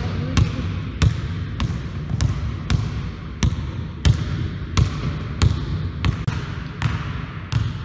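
Basketball dribbled on a wooden gym floor: a steady run of bounces, about one and a half a second.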